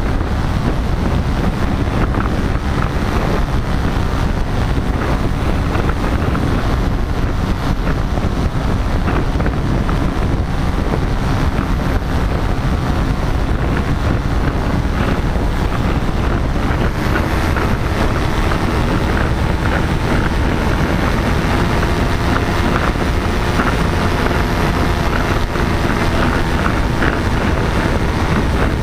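Paramotor engine running steadily in flight, largely buried under heavy wind buffeting on the microphone; its steady drone shows through more plainly in the second half.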